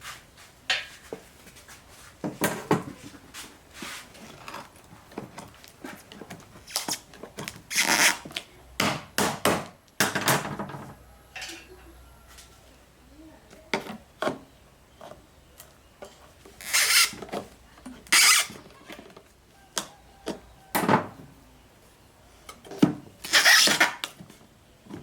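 Handling noise from a four-jaw lathe chuck and its packaging: irregular scrapes, rubs and knocks, in uneven bursts with short pauses between them.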